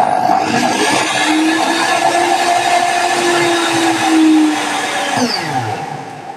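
Stanley SM18 miter saw's motor and blade running freely at speed, then switched off about five seconds in and winding down, its pitch falling as it fades.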